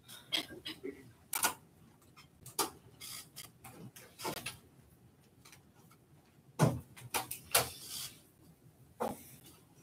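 Irregular sharp clicks and knocks, a few a second at most, with two louder knocks about six and a half and seven and a half seconds in.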